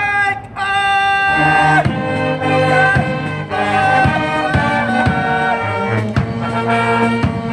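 Cheer-squad brass band with sousaphone, trumpets, saxophones and clarinet playing a cheering song: after a held opening note, the full band comes in about a second in over a low bass line, with a drum beating about twice a second.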